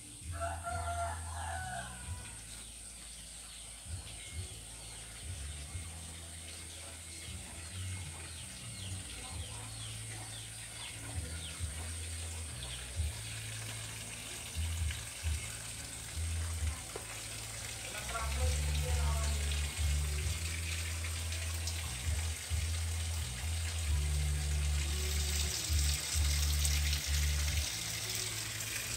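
A rooster crowing twice, once near the start and again about two-thirds of the way in, over a steady low rumble that grows louder in the second half.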